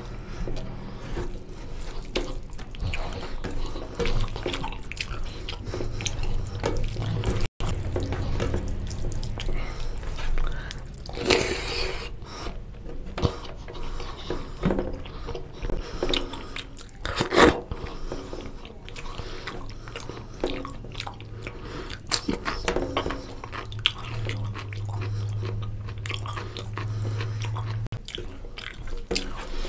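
Close-miked chewing and biting of mutton curry and rice: a dense run of small mouth clicks and smacks, with two louder, noisier bursts about a third and about halfway through. A steady low hum runs underneath.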